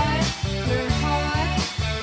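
Live band music with no vocals: guitar over bass and drums, with a steady beat.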